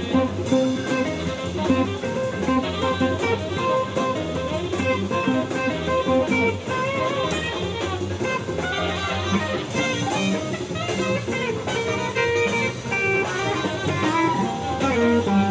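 Electric guitar played through an amp: a continuous run of quickly changing single notes, blues-style lead playing.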